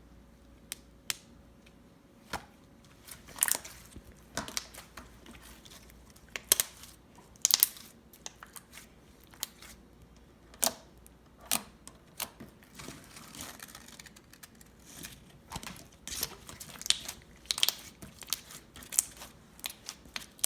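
Slime being squeezed and worked by hand, giving irregular sharp pops and crackles, sometimes several in quick succession.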